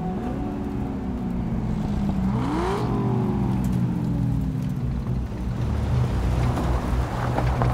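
Car engine revving as the car drives past: its pitch climbs right at the start, climbs again more steeply about two and a half seconds in with a brief rush of passing air, then slowly falls away over a steady low rumble.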